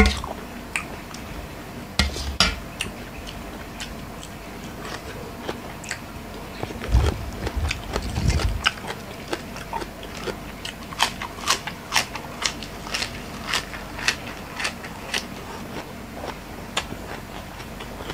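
Close-up eating sounds: crisp crunching and chewing of fresh lettuce and a spicy lotus-stem salad. The crunches come in quick succession in the second half, with a few low knocks about seven to eight seconds in.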